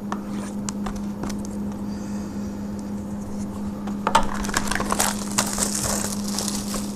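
Sealed trading-card hobby box being handled and unwrapped: a few light clicks and taps, then from about four seconds in a dense crinkling and crackling of the plastic shrink-wrap being torn off, over a steady low electrical hum.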